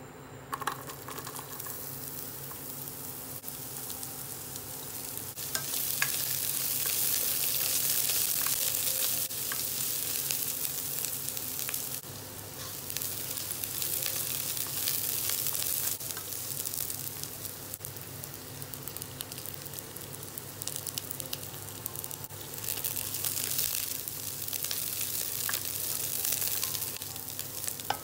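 Chopped onion frying in hot oil in a nonstick pot: a sizzle that starts as the onion goes in about half a second in, then swells and eases as it is stirred, with light tapping and scraping from the stirring.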